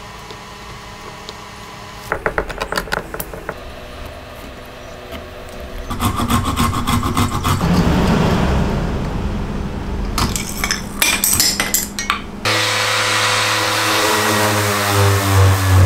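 Japanese flush-cut pull saw cutting through wood splines with a run of scraping strokes. About three-quarters of the way in it gives way to a random orbital sander running steadily on the wood, a low motor hum under the hiss of the sanding pad.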